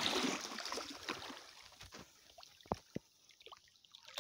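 Water splashing at the side of a small wooden boat, fading out over the first two seconds; then quiet with two faint knocks about three seconds in.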